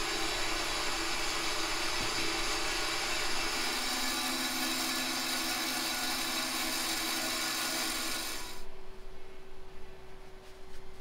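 Band saw running as it cuts through a block of foam seat padding, a steady whirring noise. It cuts off abruptly about eight and a half seconds in, leaving a faint steady hum.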